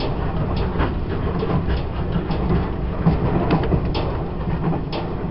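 Taiwan Railways E1000 push-pull Tze-Chiang express train running at speed, heard from inside a passenger car: a steady low rumble of wheels and track with scattered sharp clicks and knocks.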